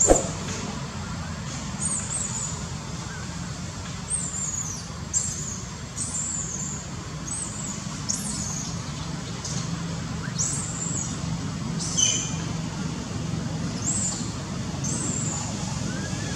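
Bird chirping, short high-pitched falling calls repeated about once a second, over a steady low rumble of distant traffic. A sharp click right at the start is the loudest sound.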